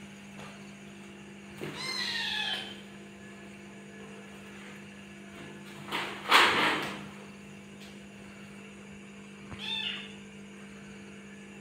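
Orange kitten meowing twice: a drawn-out mew with falling pitch about two seconds in, and a shorter one near the end. About six seconds in comes a loud, short hiss as the kitten arches its back at the young macaque. A steady low electrical hum runs underneath.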